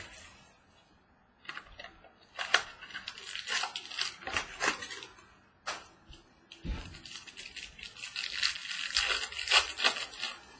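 Foil wrapper of a trading-card pack being torn open and crinkled: irregular crackling rustles starting about a second and a half in and busiest near the end.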